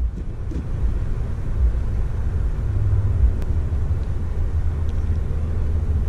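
Steady low outdoor rumble, with no clear bird calls.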